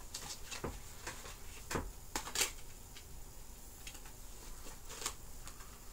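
Clicks and rustles of a CD and its packaging being handled, with a few sharper clicks, the loudest about two and a half seconds in.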